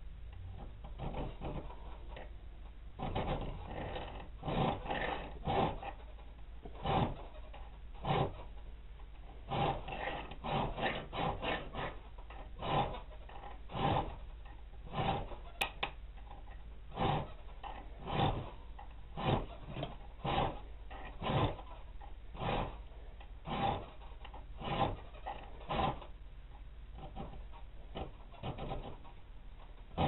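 Hand file scraping across the steel spine of a balisong knife blade, cutting rope-pattern filework. Repeated short strokes, in quick runs at first, settling into about one stroke a second.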